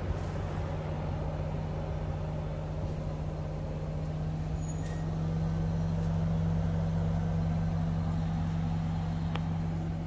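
Daikin Fit inverter heat pump outdoor unit running: a steady low hum of its fan and compressor, a little louder from about halfway through.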